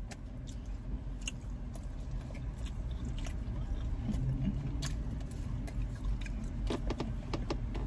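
Close-up chewing and biting on saucy chicken wings: small wet clicks and smacks. A steady low rumble sits under them.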